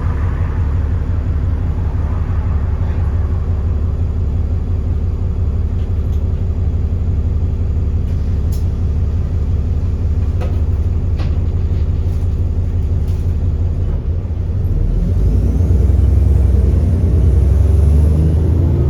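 Alexander Dennis Enviro400 double-decker bus engine running steadily at idle, then about fourteen seconds in revving up and growing louder as it accelerates, with a faint rising turbo whistle.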